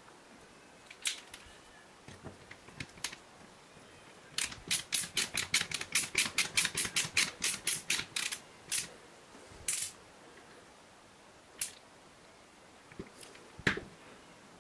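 Hand screwdriver driving a screw through a metal bracket into a plastic pipe fitting. A quick run of about twenty sharp clicks, four or five a second, lasts about four seconds, followed by a few single clicks and a knock near the end.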